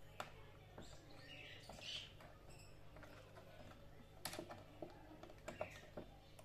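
Faint, scattered clicks and light taps of small metal parts and a screwdriver being worked on a workbench, as a screw is driven into the heater block's mounting bracket, with a few sharper clicks around four to six seconds in.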